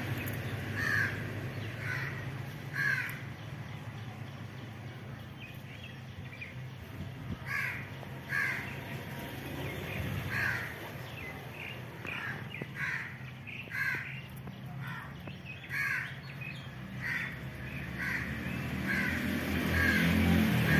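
A bird outdoors giving a dozen or so short calls at irregular intervals, about one every second or two, over a steady low rumble that grows louder near the end.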